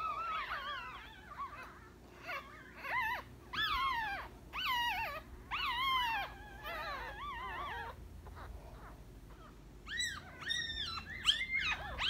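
Very young Yorkshire terrier puppies crying in a quick series of short, high-pitched squeals that bend up and down in pitch, pausing for about two seconds near the end before starting again.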